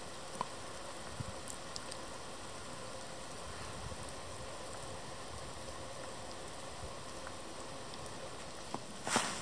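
Steady hiss of falling snow in bare winter woods, with a few faint ticks. Near the end, footsteps in snow begin, louder and irregular.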